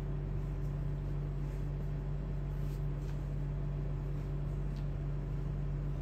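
Steady low hum of a running electrical appliance, with a few faint light clicks.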